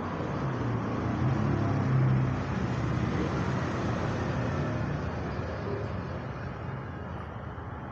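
Road traffic passing: a vehicle's engine grows louder over the first two seconds and then fades, over a steady traffic hum.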